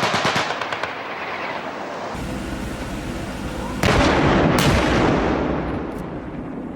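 Military weapons firing: a rapid machine-gun burst that stops within the first second, then a loud blast a little under four seconds in, followed by a sharp crack and a long rolling rumble that slowly fades.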